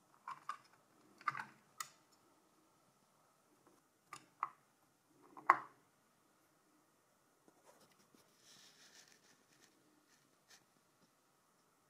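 Light metallic clicks from an LGA1150 CPU socket as its retention lever is unhooked and lifted, the load plate swung open and the Intel Core i7-4790 taken out, the sharpest click about five and a half seconds in. A faint rustle of handling follows.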